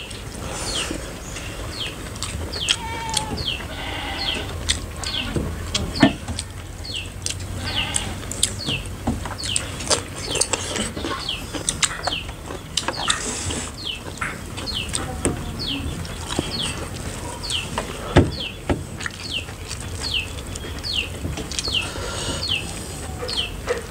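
Close-up eating sounds: open-mouthed chewing and lip-smacking of rice and buffalo meat curry eaten by hand, with fingers scraping and tapping on metal plates. A bird chirps over and over in the background, short falling notes about every half second.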